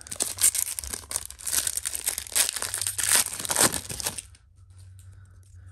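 Foil wrapper of a 1994-95 NBA Jam Session trading card pack crinkling and tearing as it is handled and opened by hand, dense crackles for about four seconds that then die away.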